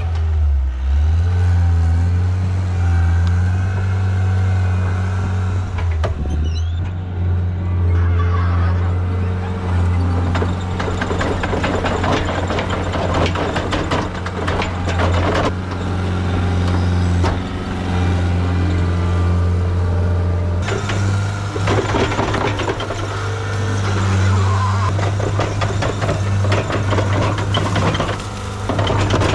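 Diesel engine of a John Deere 323D compact track skid steer running steadily under load while grading dirt. Long stretches of clattering and scraping from the machine as it works, from about 8 to 15 seconds in and again from about 21 seconds on.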